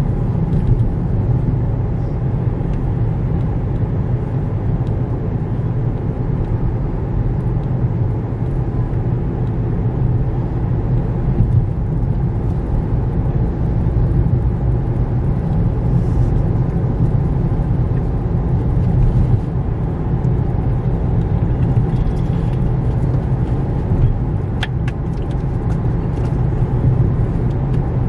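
Steady low rumble of a car driving at speed, engine and road noise heard from inside the cabin.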